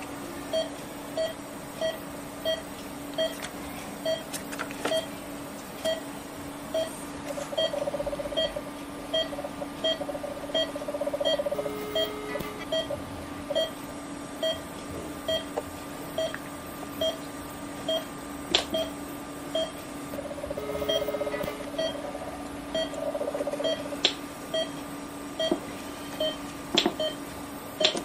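Patient monitor beeping steadily in time with the pulse, about three beeps every two seconds, over a steady electrical hum. Twice a steady electronic tone and buzz sounds for a second or two as the ERBE argon plasma coagulation unit fires.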